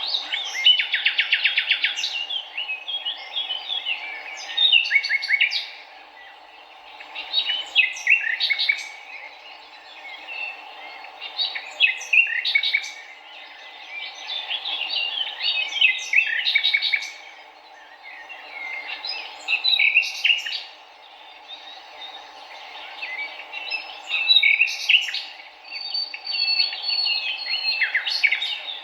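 Birds singing, with bursts of quick, high chirping phrases about every four seconds over a steady low background hiss.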